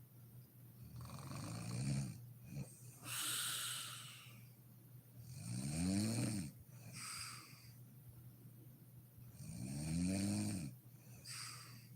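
A sleeping woman snoring in a slow, regular rhythm: three snores about four seconds apart, each a buzzing tone that rises and falls, followed by a breathy, hissing exhale.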